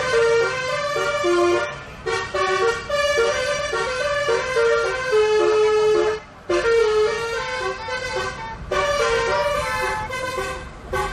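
Telolet bus horn, a multi-tone air horn, playing a tune of held, stepped notes, with brief pauses between phrases.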